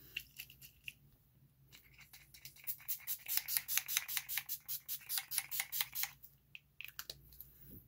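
Urban Decay All Nighter setting spray's pump mister being spritzed onto the face in a quick run of short sprays, several a second, starting about two seconds in and stopping about six seconds in.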